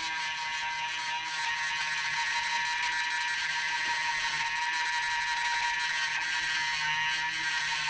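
A small electric tool motor running steadily with a high whine, in use on the seatbelt retractor's fasteners.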